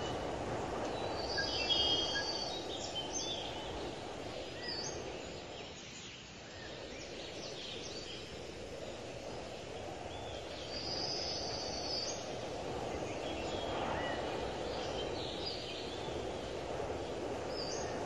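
Steady outdoor background noise with birds chirping now and then, in clusters about two seconds in and again around eleven seconds.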